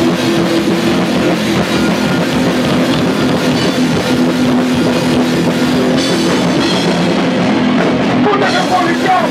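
Live hardcore punk band playing an instrumental passage: distorted electric guitar, bass guitar and drum kit at full volume, with shouted vocals coming back in near the end.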